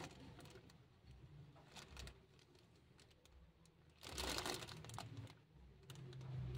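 Plastic bag wrapped around a hand crinkling and rustling as it presses and shifts, with scattered small clicks and a louder rustle about four seconds in.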